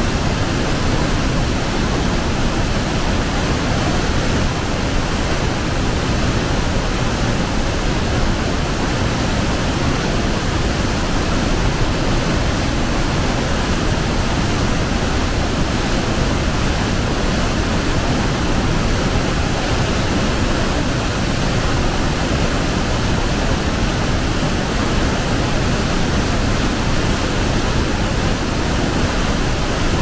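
Waterfall rushing, a loud, steady, unbroken roar of falling water.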